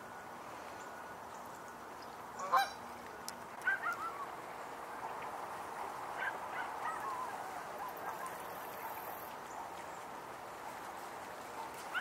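Canada geese honking in scattered calls: the loudest comes a little over two seconds in, followed by runs of shorter honks around four seconds and between six and seven and a half seconds.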